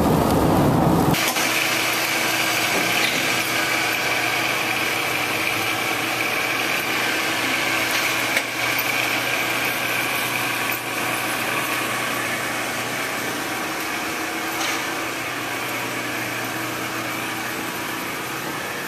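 Car cabin road rumble for about a second, then a bifold hangar door's electric lift motors running as the door moves: a steady mechanical hum with a high whine, slowly fading.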